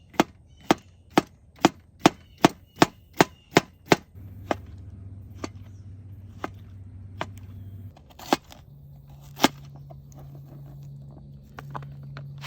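Kitchen knife chopping salad vegetables on a cutting board: about ten quick, even chops in the first four seconds, then a few slower, scattered cuts.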